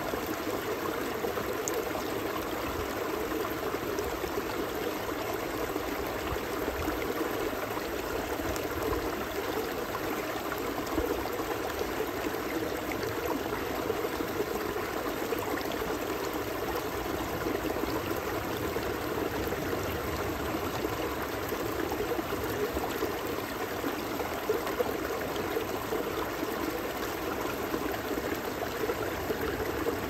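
A shallow mountain stream running and babbling over pebbles and rocks, a steady rush and gurgle of water.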